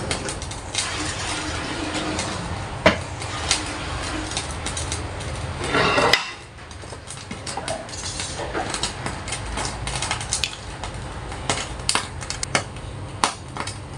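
Kitchen sounds from a wok heating oil on a gas stove: a steady hiss with a low rumble swells and then cuts off about six seconds in, followed by scattered light clinks and knocks of pans and utensils.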